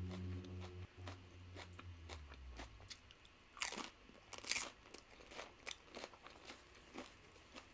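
Tortilla chips crunching as a person bites and chews nachos close to the microphone: a run of short crisp crunches, with two louder ones about four seconds in.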